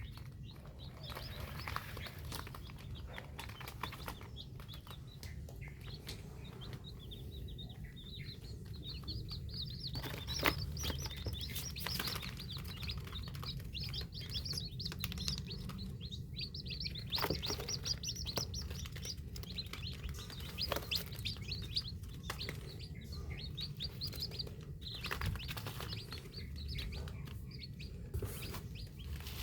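Many newly hatched chicks peeping, with rapid high chirps overlapping without pause. Underneath is a low steady hum, with a few short knocks here and there.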